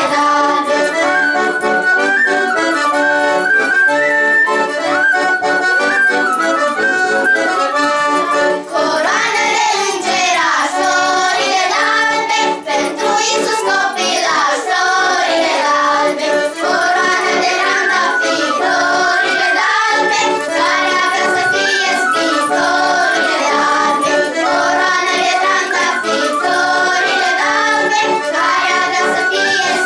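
Accordion and a folk flute playing a traditional Romanian Christmas carol tune, an instrumental passage with little or no singing.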